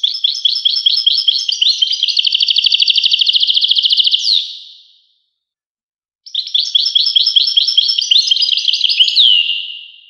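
European goldfinch singing: two long phrases of rapid twittering notes separated by a short pause. The first phrase runs into a fast, even trill midway, and each phrase ends on a falling note.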